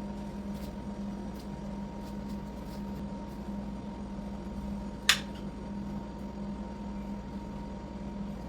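A steady low hum over room noise, with one sharp click about five seconds in.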